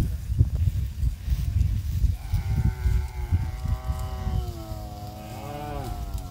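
A cow mooing: one long call starting about two seconds in and lasting about four seconds, its pitch wavering near the end.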